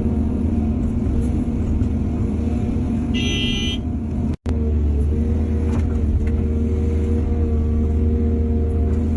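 Heavy diesel engine of an excavator at work, running steadily. About three seconds in, a short high-pitched toot sounds over it. The sound cuts out for an instant a little later.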